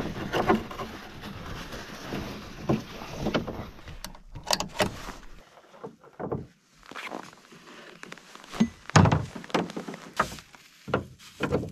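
Handling noise of a strap being worked around a plywood box in a pickup's bed: irregular knocks, clicks and rustles.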